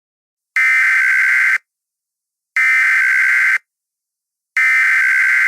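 Emergency Alert System SAME header: three one-second bursts of buzzing two-tone digital data, about a second apart. It is the coded header that opens an emergency alert broadcast.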